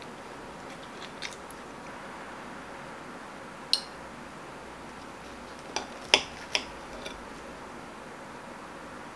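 Knife, fork and a small glass syrup pitcher clinking against a ceramic plate and table: a few sharp, separate clicks, a cluster of them about six seconds in, over a steady faint hiss.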